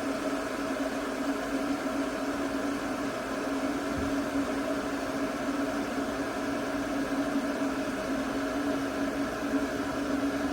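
Glass electric kettle heating water close to the boil: a steady rushing simmer with a steady low hum underneath.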